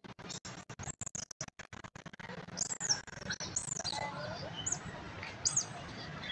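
About five short, high-pitched chirps, each a quick rise and fall in pitch, starting about two and a half seconds in, over a steady low background rumble.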